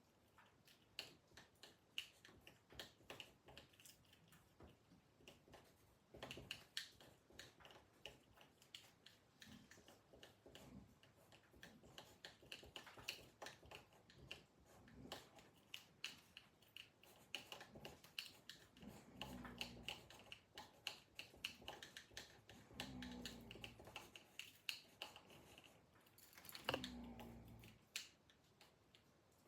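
A man snoring faintly, low snores coming about every three and a half seconds in the second half, amid many light clicks and ticks.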